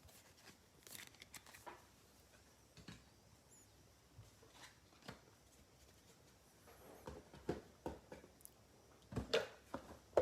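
Faint scattered clicks and rustles of trading cards and card packs being handled, growing louder and busier in the last few seconds.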